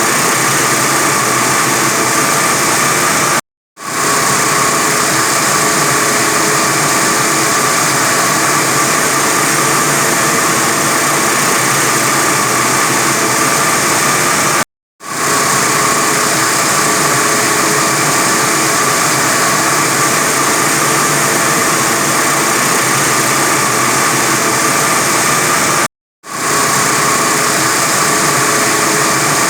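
45 kW diamond wire saw running steadily through reinforced concrete: a loud, even machine noise with a constant whine. It cuts out abruptly three times, about eleven seconds apart, and comes straight back each time.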